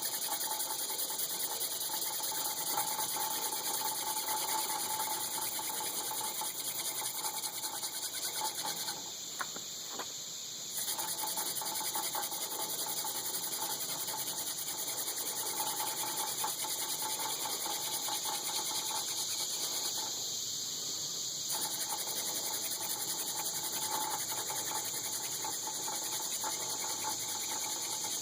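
Horseweed spindle spinning back and forth in a hand-drill hearth board notch, a continuous rhythmic friction rasp in several passes, with short breaks about nine and twenty seconds in as the hands return to the top of the spindle.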